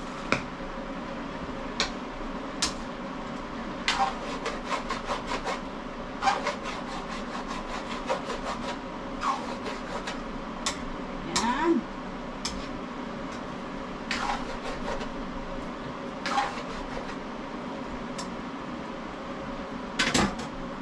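A spatula stirring and scraping chopped pork in a frying pan: irregular short scrapes and clacks against the pan every second or so, over a steady hum.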